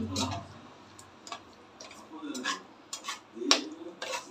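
Perforated steel skimmer spoon scraping and knocking against the inside of a metal pressure cooker while thick tomato and mint masala is stirred, giving about half a dozen irregular clicks and scrapes.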